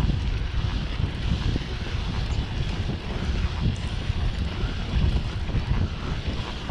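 Wind buffeting the microphone of a camera on a moving mountain bike, a steady gusty rumble, with the hiss of the bike rolling along a wet dirt trail beneath it.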